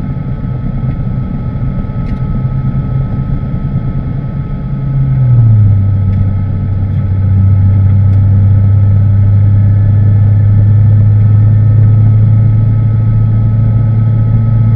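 Ariel Atom race car's engine running steadily under way, heard from a camera mounted on the car. About five seconds in its pitch drops once and it gets louder, then holds a steady note.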